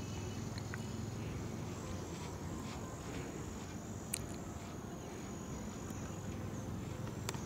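Faint outdoor background noise: a steady low rumble under a thin, steady high whine, with a sharp click about four seconds in and another near the end.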